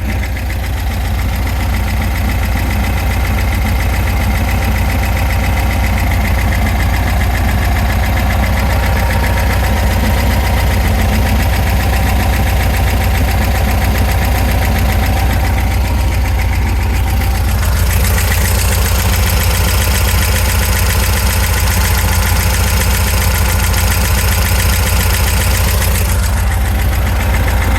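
Volkswagen Super Beetle's air-cooled 1679 cc dual-port flat-four idling steadily, with a knock that the owner suspects comes from around the oil pump. The sound turns brighter and hissier for a stretch in the last third.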